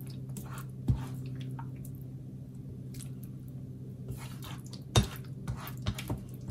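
Thick, creamy pot pie filling being scraped from a pan and spread into a glass baking dish with a silicone spatula: wet squishing and dripping with small scraping ticks. There are two sharp knocks of the utensil against the cookware, about a second in and, louder, about five seconds in.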